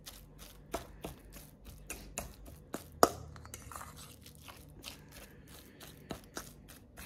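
A fork mashing and stirring a soft salmon-and-potato mixture in a stainless steel bowl: a quick, irregular run of light clicks and scrapes of the tines against the metal, about three to four a second, with one sharper clink about three seconds in.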